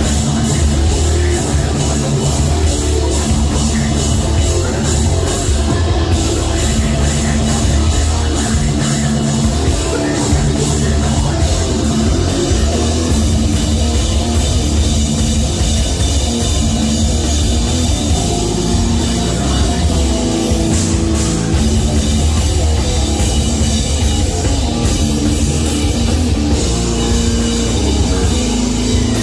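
Live heavy metal band playing loud, with a pounding drum kit, heavy bass and distorted electric guitars.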